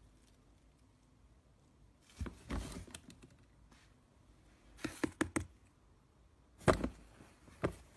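Plastic swing-lid bin knocking and clacking in a few short clusters of clicks, about two, five and seven seconds in, as a cat moves in it. Faint room tone in between.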